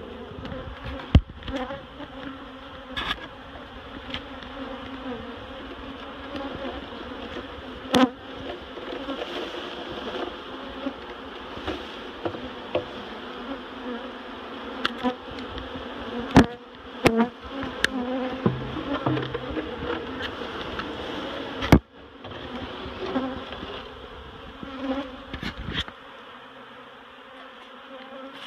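A large colony of honeybees buzzing close up, a steady hum, with sharp knocks and bumps now and then.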